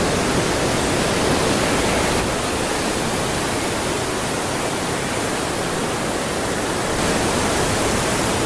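Steady rushing roar of sea surf breaking on the beach, an unbroken wash of noise that eases a little in the middle.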